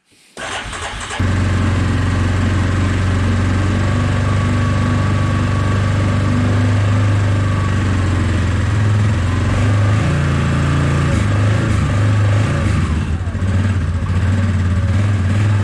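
Yamaha ATV engine cranking briefly and catching about a second in, then idling steadily.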